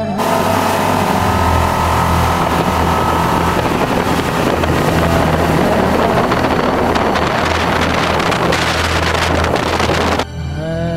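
Small motorboat's engine running steadily at speed, with wind buffeting the microphone over a steady low hum. It cuts off sharply near the end.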